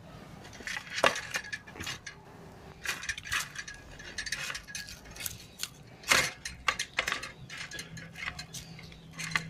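Wire grill basket clinking and scraping against a ceramic plate as grilled chicken pieces are pushed off its grate: irregular clicks and scrapes, the sharpest about a second in and about six seconds in.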